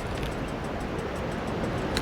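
Soft background music over a steady rushing noise, with one sharp click near the end.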